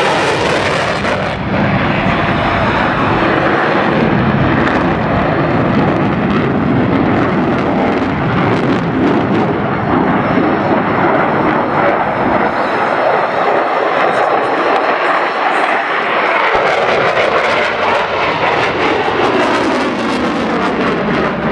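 An airplane's engine noise, loud and steady, as the aircraft flies past.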